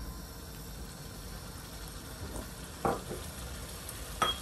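Rohu fish in thick spice paste sizzling gently in a kadai as raw potato wedges are dropped in, with two sharp knocks of potato against the pan, one about three seconds in and a louder one with a short ring near the end.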